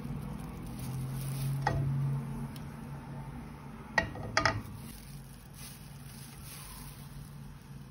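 Light kitchen clinks at a frying pan: one soft click about a second and a half in, then a few sharp clinks close together around four seconds in.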